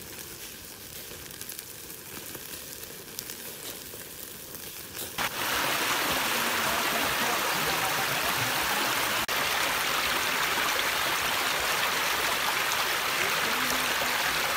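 Duck pieces sizzling on a wire grill over a crackling charcoal fire, faint and with light scattered crackles. About five seconds in, a much louder, steady rush of a stream pouring over rocks takes over.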